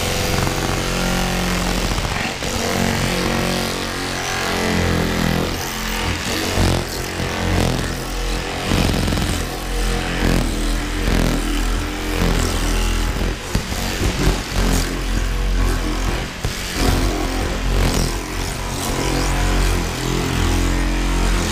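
Cordless Equalizer Ambush power cut-out tool running steadily, its blade sawing through the windshield urethane along the bottom edge of the glass, with the motor's pitch and level wavering as it meets resistance.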